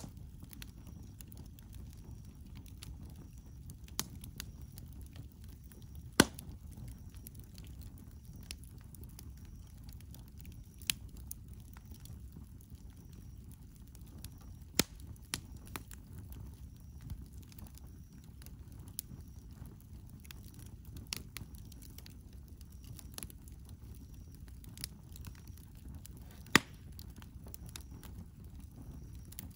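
Campfire of burning wood crackling: a steady low rumble of the flames with sharp pops every second or two, a few of them much louder.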